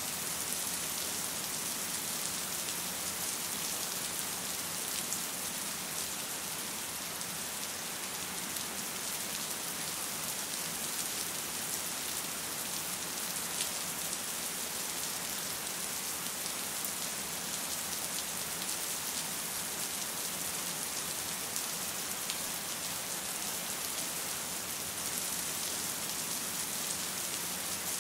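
Steady rain falling, an even hiss with scattered faint drop ticks and no change in intensity.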